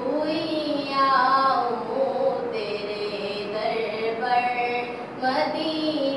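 A naat, an Islamic devotional song, sung by a solo voice in long held notes that glide between pitches, with short pauses between phrases.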